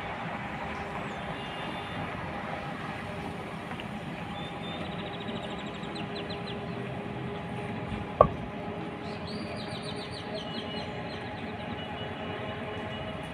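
Distant KCS diesel locomotive of a work train running, a steady rumble with a faint hum. Birds chirp in quick trills twice, and a single sharp knock about eight seconds in is the loudest sound.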